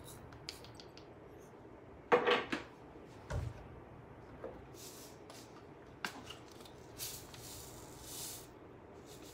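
Kitchen handling sounds while salt is measured out: light clicks, a clatter of a utensil or container about two seconds in, a low knock just after, and a soft hiss near the end.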